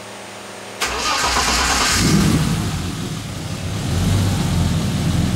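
BMW E21's engine being cranked and catching suddenly about a second in, then running on and settling into a steady idle.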